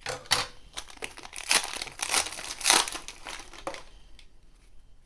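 Wrapper of a football trading card pack being crinkled and torn open, in a run of irregular crackles that goes quiet about four seconds in.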